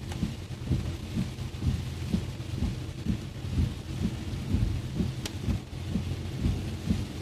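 Heavy rain on a moving car: a steady hiss with dense, irregular low thumps of drops on the body, and one sharp click about five seconds in.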